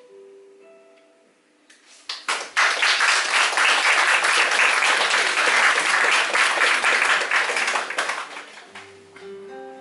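A few soft picked acoustic guitar notes, then an audience bursts into applause about two seconds in, clapping steadily for some six seconds before it dies away. The guitar picking resumes near the end.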